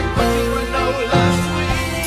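Pop band music playing, with sustained chords over a bass line.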